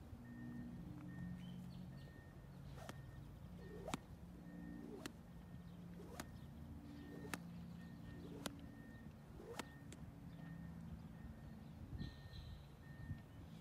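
Lead rope swung and slapped in an even rhythm, seven sharp slaps about a second apart, while desensitizing a young mustang filly to the rope.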